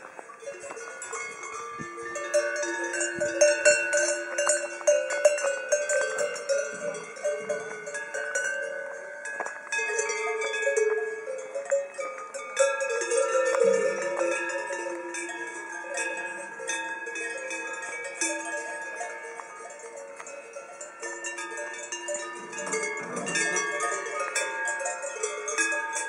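Cowbells on a grazing herd of cattle, clanking and ringing irregularly as the cows move. Many bells of different pitches overlap. The ringing is loudest in the first half, eases off in the middle and picks up again near the end.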